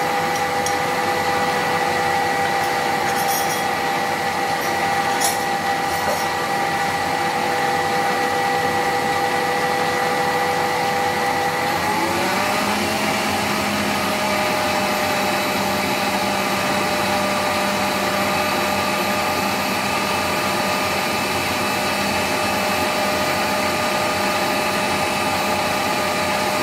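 Electric stand mixer running steadily, its whisk beating eggs and sugar in a steel bowl. The motor's whine shifts to a slightly higher pitch about halfway through.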